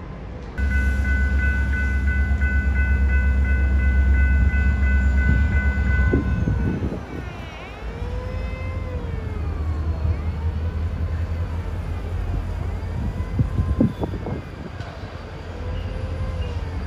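Florida East Coast Railway EMD four-axle diesel locomotive sounding its horn in one long, loud blast of about five and a half seconds, starting half a second in. After the blast the engine rumbles steadily, with a few sharp wheel clicks, as the train approaches.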